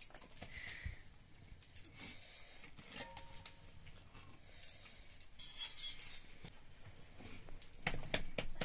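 Faint scattered clicks, taps and rustles of a meal eaten by hand: roti being torn and steel dishes and a steel cup handled beside a wood fire, with a louder rustle near the end.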